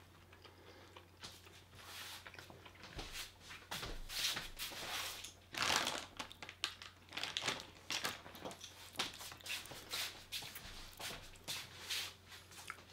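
Irregular crunching and crinkling from walnut pieces being eaten out of a plastic snack bag: short dry crackles at uneven intervals, loudest around the middle.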